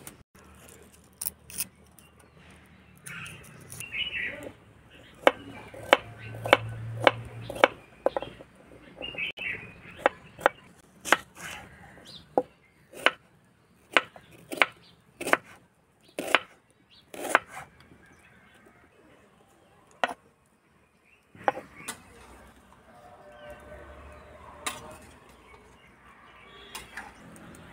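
Kitchen knife slicing garlic and red onion on a wooden cutting board: a run of sharp, irregular knocks as the blade hits the board, roughly one or two a second. Near the end the knocks give way to a softer steady hiss with a few clicks.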